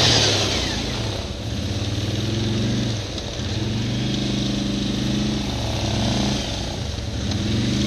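ATV engine running under throttle over snow, its pitch rising and dropping several times as the rider opens and eases off the throttle. A loud hiss fades out within the first second.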